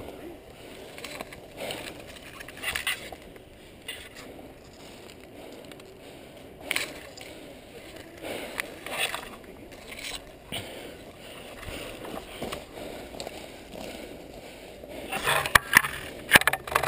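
Footsteps on dry dirt and brush, with branches and dry grass rustling against the player and the camera, in short irregular scuffs. Near the end the rustling comes thicker and louder, with a few sharp clicks.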